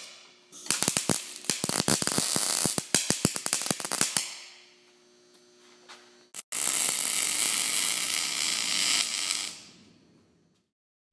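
MIG welding arc from a Millermatic 250X wire-feed welder crackling in a fast run of sharp pops for about three and a half seconds. After a pause that carries the welder's steady hum, a second stretch of welding follows as a steadier hiss for about three seconds, then cuts off.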